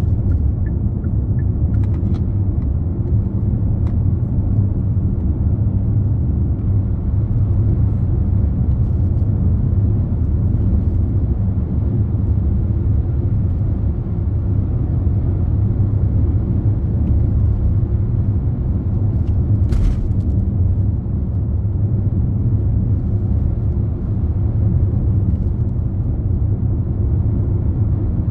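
Steady low rumble of a car driving on the open road, tyre and engine noise at a constant cruising speed.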